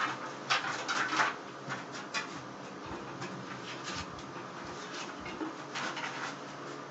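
A hollow sheet-metal money box being shaken upside down, with rolled banknotes scraping and tapping inside it as they slide out onto a concrete floor. The scrapes and taps come in clusters, busiest about half a second to a second and a half in and again near the end.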